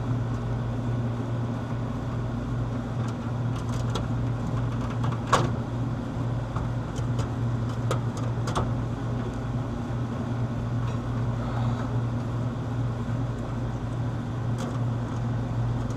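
A steady low hum under scattered light clicks and taps of hand tools working on an air conditioner's electrical wiring; the sharpest click comes about five seconds in.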